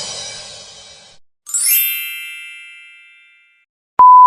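A run of short sound effects: the tail of a crash ringing down during the first second, then a bright chime-like ding that rings out over about two seconds, then a loud steady single-pitch beep starting near the end.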